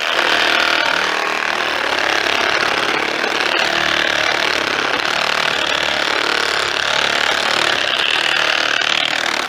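A power saw cutting through wood at full speed, a steady, loud buzzing saw noise without pauses.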